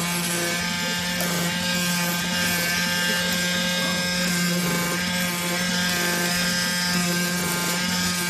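CNC oscillating knife cutter running as its vibrating blade cuts through cardboard: a steady mechanical buzz, with a fainter higher tone that keeps coming and going.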